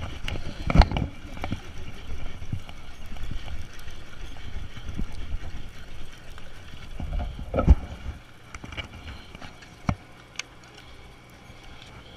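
Rumbling boat and water noise with a couple of heavy thumps from handling of a baitcasting rod and reel. The rumble drops away about eight seconds in, leaving a few sharp clicks.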